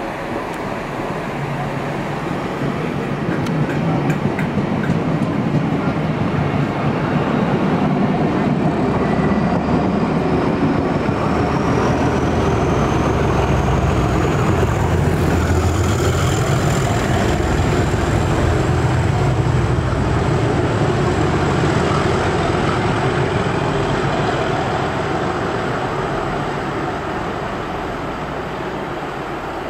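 Class 37 diesel-hauled test train passing through a station: wheels and coaches rumbling along the rails, with the locomotive's English Electric engine working hard under power. A high whistle, typical of a Class 37's turbocharger, rises in pitch about a third of the way in and then holds; the sound builds at first and fades near the end as the train draws away.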